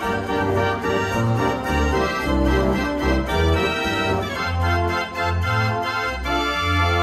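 Dutch street organ 'De Brandweer' (G. Perlee, Amsterdam) playing a tune: pipe melody and chords over a bass line that changes notes on a steady beat.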